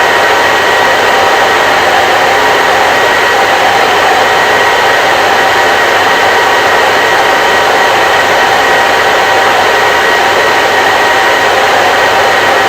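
Hair dryer running continuously: a steady rush of air with a constant motor whine, never changing in level or pitch.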